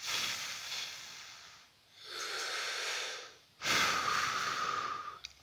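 A man breathing out hard through his mouth three times, each breath lasting about a second and a half, while eating hot, spicy ramen.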